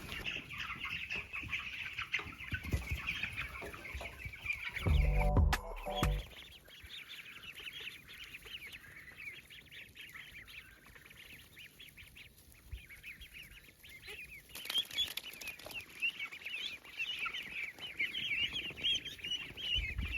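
A flock of chickens calling, with many short high calls overlapping and thinning out for a few seconds midway. A brief low thud comes about five seconds in.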